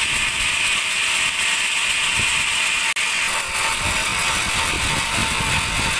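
Large band sawmill running, a steady mechanical rattle with a strong high hiss. The sound drops out for an instant about three seconds in.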